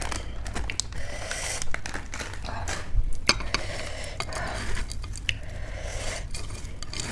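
A hand mixing mashed potato filling with crunchy bhujia in a stainless steel bowl: soft squishing and rustling, with a few sharp clinks against the bowl.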